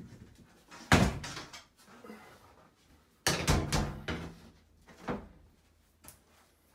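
A large prefabricated tub-surround wall panel being picked up and handled, giving knocks and thuds: a sharp loud knock about a second in, a cluster of bumps about three and a half seconds in, and a lighter knock about five seconds in.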